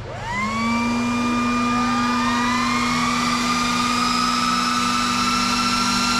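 Obelisk SC1 Dual ASIC miner's cooling fans spinning up at power-on. The loud whine rises sharply in the first second, then keeps climbing slowly, with several fan tones rising together over a steady hum.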